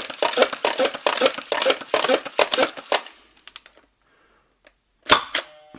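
Buzzbee AirMax 10 air-pressure dart blaster being pumped eight times, a run of plastic pump strokes about two a second that builds air pressure in its tank. After a pause of about two seconds it fires with one sharp burst of released air.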